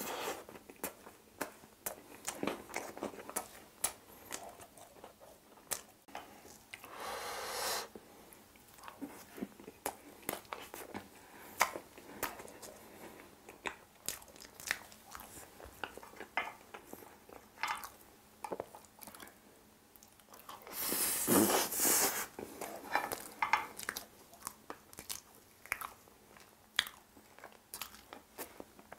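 Close-miked eating sounds of a person chewing spoonfuls of Oreo ice box cake: wet chewing, lip smacks and soft clicks, with now and then a crunch of chocolate cookie. Two louder, longer noisy sounds come about 7 s and 21 s in.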